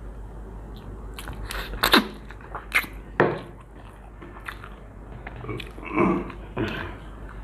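Chewing and biting while eating kacchi biryani: irregular, sharp, wet mouth smacks and clicks.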